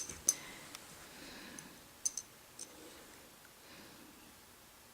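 A quiet room with a few faint, scattered clicks and taps: several near the start, a pair about two seconds in and one more shortly after.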